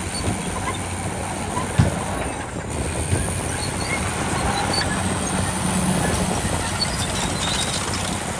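Heavy diesel construction machinery running steadily, with a sharp knock just under two seconds in.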